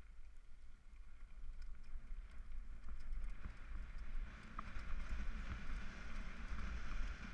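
Mountain bike rolling fast down a gravel trail: tyres crunching over loose stones and the bike rattling with scattered small clicks, under a low wind rumble on the helmet-mounted camera. It grows louder over the first few seconds as the bike picks up speed.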